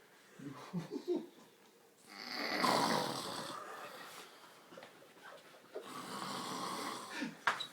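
Heavy snoring: a few short sounds, then two long snores of about two seconds each, with a sharp click near the end.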